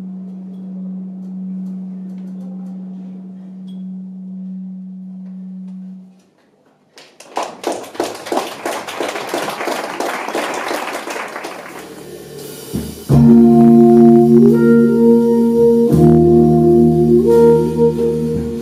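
Live jazz band with electronics: a steady low electronic drone holds for about six seconds and stops, then a clattering, rustling percussion passage follows, and about thirteen seconds in the band comes in loud with sustained synthesizer chords and saxophone.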